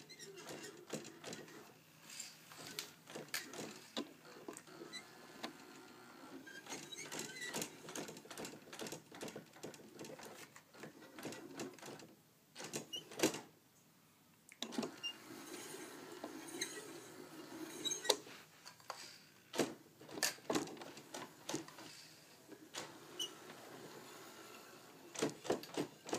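Electric RC buggy's motor running in short spurts while it tows a toy RC boat across carpet: a low mechanical hum with irregular clicks and knocks, briefly quieter about halfway through.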